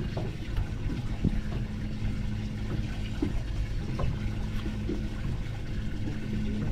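Water sloshing and trickling, with a few small splashes, over a steady low hum.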